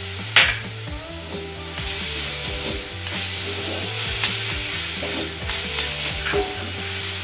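Spatula stirring and scraping moist grated coconut and jaggery filling in a steel kadai on the heat, a steady rasping scrape. A sharp knock of the spatula on the pan comes about half a second in, with a few lighter knocks later.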